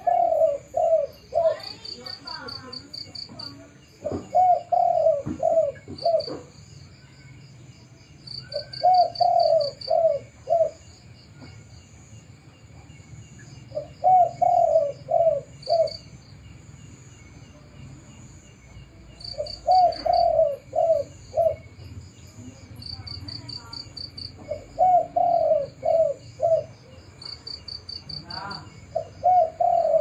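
Spotted dove cooing, a phrase of four or five low notes repeated about every five seconds, six full phrases in all. Insects trill steadily and high-pitched behind it.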